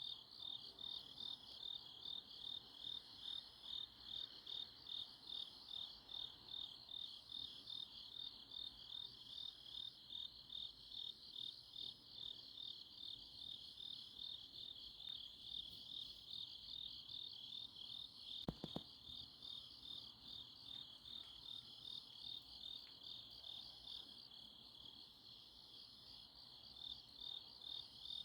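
Crickets and other grass insects chirping at night, a high, steady pulsing chorus at about two pulses a second, with a fainter, slower chirp above it. A single brief faint knock sounds about 18 seconds in.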